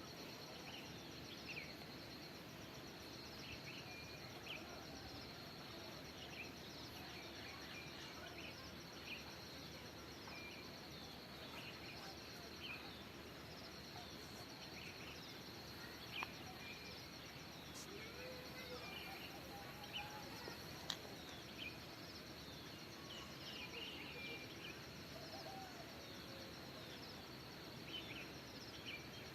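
Faint forest ambience: a steady high-pitched insect trill, with short bird chirps and calls scattered throughout and a few brief clicks.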